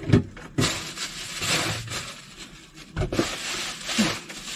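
Plastic packaging rustling and crinkling as packs of meat skewers are handled and taken out of a fridge, with a few knocks of items being moved.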